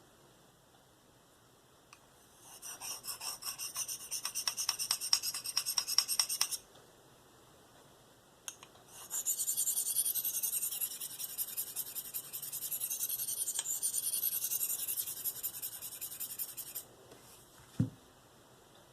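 Steel blade of a Spyderco Endura 4 stroked freehand across a Spyderco 302M medium ceramic sharpening stone, making a dry scraping rasp: first a run of quick, evenly spaced strokes, then after a pause a longer spell of steady scraping. A short low knock comes near the end.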